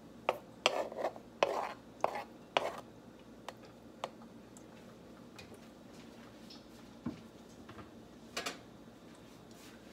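Kitchen knife scraping and tapping on a plastic cutting board as chopped kimchi is pushed off onto a plate: a quick run of short scrapes and knocks in the first three seconds, then a few scattered light knocks.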